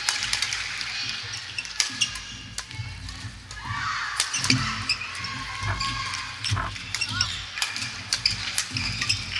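Badminton doubles rally in a large wooden-floored gymnasium: sharp racket hits on the shuttlecock, some from neighbouring courts, and shoe squeaks on the court floor, all echoing in the hall.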